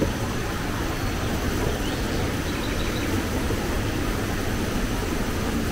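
Steady rushing of a fast-flowing stream running white over rocks.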